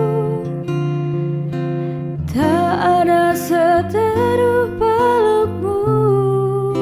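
Music: a woman singing a slow, wordless melody of long held notes, with a rising slide about two and a half seconds in, over guitar accompaniment.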